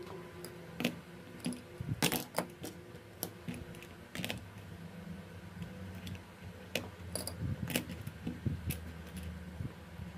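Irregular small clicks and taps of hand tools and parts on an iPhone 4S being taken apart by hand, over a steady low hum.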